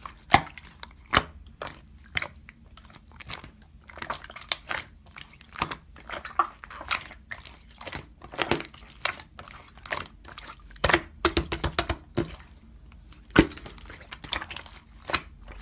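Hands pressing and stretching slime, making irregular sticky clicks, pops and crackles.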